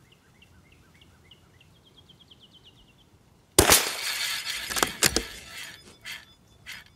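A bird trills faintly in a run of short chirps that rise slightly in pitch. About halfway through, a .22 LR rifle fires once with a sharp crack. Several knocks and clicks follow, from the rifle being handled.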